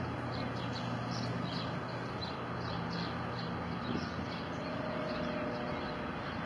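Steady outdoor background noise with a low hum, and faint high chirps repeating two or three times a second.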